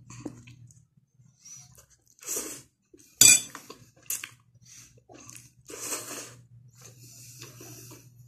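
Eating noises: a fork clinking on a glass bowl, the loudest a sharp clink about three seconds in, between short bursts of slurping and chewing of pancit canton noodles eaten in a bread roll. A low steady hum runs underneath.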